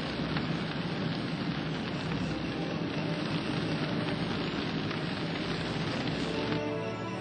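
A dense, even rushing hiss of noise, like a storm or a blaze, that cuts in abruptly and stops abruptly near the end.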